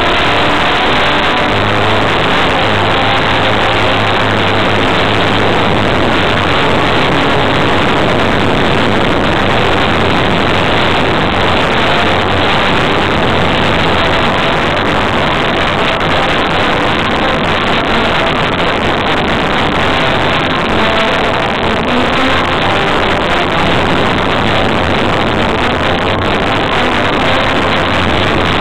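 A loudspeaker overloading the microphone: its sound is clipped into a constant harsh, distorted roar in which any music is barely recognisable.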